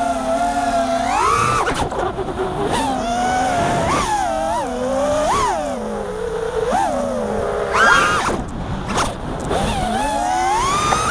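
5-inch FPV freestyle quadcopter's brushless motors and propellers whining, heard from the onboard camera. The pitch swoops up and down with each throttle punch, with the sharpest rise about eight seconds in and another climb near the end.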